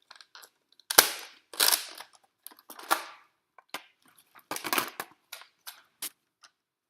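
Plastic Nerf blaster being worked while it jams: a sharp clack about a second in, then several rasping slides and clicks as it is primed and the trigger pulled, without a proper shot. It keeps misfiring.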